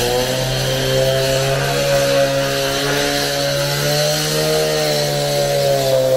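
Small petrol engine of roadworks equipment running steadily, one pitch with overtones that rises slightly and falls back about four to five seconds in.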